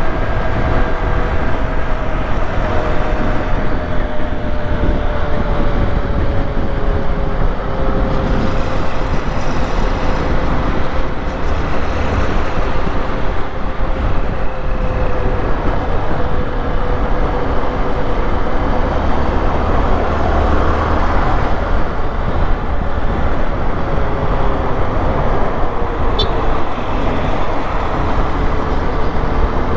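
Honda XRE 190 motorcycle's single-cylinder engine running under way, with heavy low rumble and rushing noise around it; its note slowly drops over the first half and steadies.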